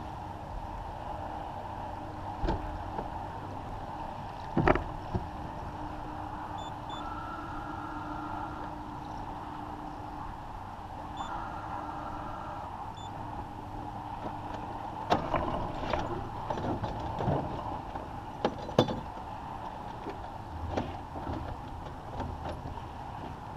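Water washing along a First 30 sailboat's hull under sail, with wind noise, and several sharp knocks and clatters on deck, the loudest about five seconds in and near the end.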